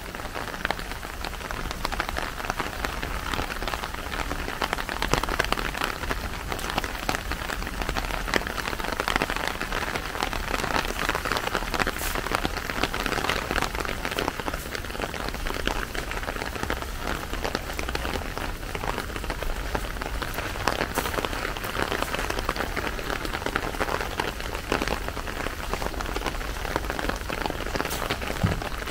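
Steady rainfall, an even hiss with a dense patter of individual drops hitting surfaces.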